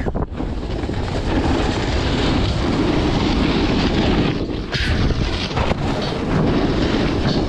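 Wind rushing over the microphone with a snowboard sliding and scraping over packed snow at speed, a steady, loud rushing noise with a few brief changes in the middle.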